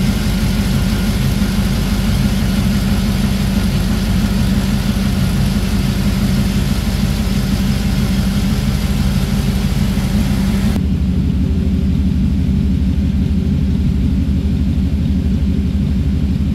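The custom 1950 Ford F1 pickup's V8 engine idling steadily. A steady hiss over the idle cuts off abruptly about eleven seconds in, while the engine keeps running.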